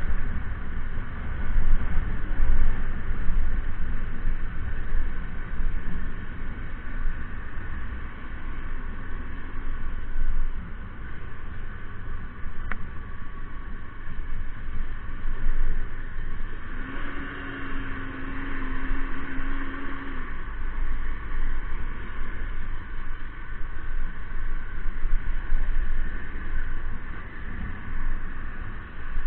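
Wind buffeting the microphone in a fluctuating low rumble over a steady mechanical hum, with a steady low tone lasting about three seconds a little past the middle.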